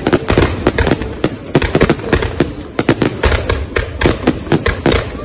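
Fireworks display: a dense, continuous barrage of bangs and crackles, several shots a second.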